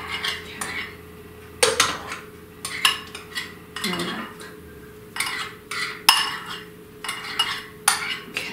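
Metal spoon stirring a thick cream cheese and whipped-topping mixture by hand in a bowl, scraping and clinking against the bowl's sides at irregular moments.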